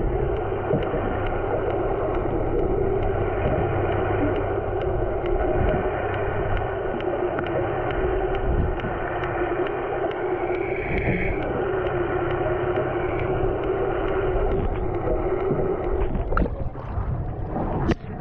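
Underwater recording: a steady muffled wash of water noise with a constant low hum, typical of a boat's outboard motor heard through the water, and faint ticking about twice a second. The sound breaks up briefly near the end.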